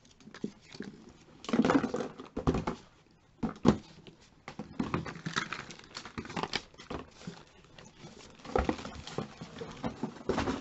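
Cosmetic products and their packaging being handled and set down: an irregular string of light knocks and clacks with some rustling.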